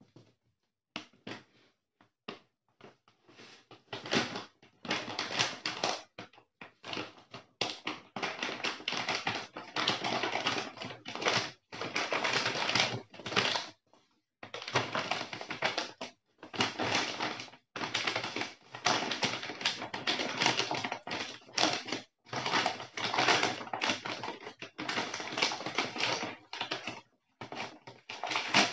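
Brown kraft-paper mailer bag crinkling and rustling as it is handled, squeezed and pulled at to open, in irregular bursts with brief pauses.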